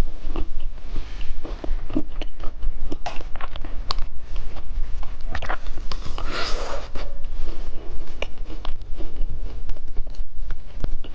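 Biting and chewing a chocolate-coated ice cream bar close to the microphone: irregular sharp cracks of the frozen chocolate shell, with crunching and wet mouth sounds.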